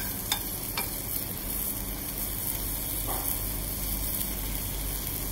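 Diced bacon sizzling gently in a frying pan over medium heat as its fat renders out, over a steady low hum. In the first second a metal spoon taps against the pan a few times.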